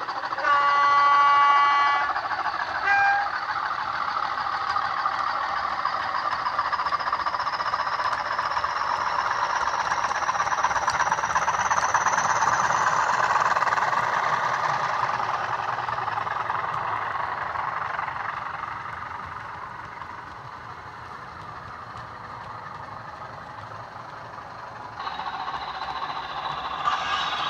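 Twin Bachmann Class 20 diesel models playing Legomanbiffo DCC sound through small slim speakers: a horn blast of about a second and a half, then a short toot on a higher note. The English Electric engine sound follows, with a high turbocharger whistle climbing steadily in pitch as the locomotives pass; it fades away, then comes back louder near the end.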